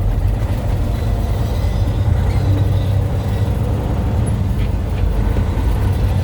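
Semi truck's diesel engine running with a steady low rumble as the truck gets under way.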